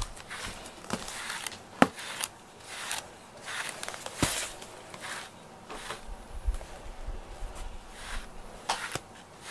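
Wire slicker brush drawn through a cat's short fur, in repeated brushing strokes a little more than one a second, with two sharp clicks about two and four seconds in.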